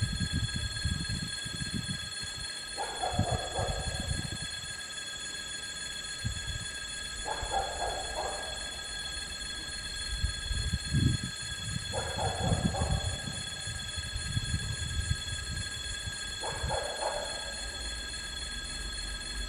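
Level-crossing warning bell ringing steadily, with a brief mid-pitched sound recurring about every four and a half seconds. Under it is the low rumble of the approaching 2M62 twin-section diesel locomotive hauling a track-maintenance train.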